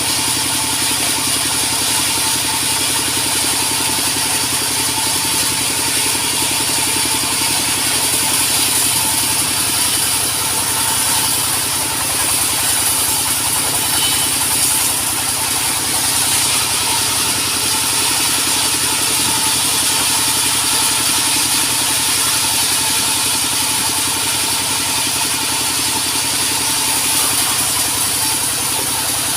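Sawmill machinery running steadily: an engine drone with a strong high hiss, even in level throughout.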